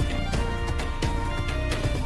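Background music with a steady beat, held melodic notes over a strong bass.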